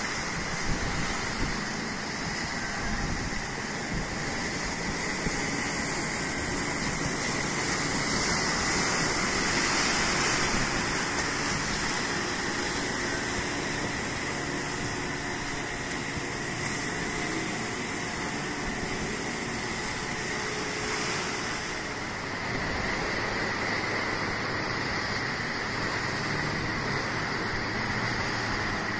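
Steady sea noise of waves washing over harbour breakwater rocks, mixed with the engines of small outrigger fishing boats motoring past.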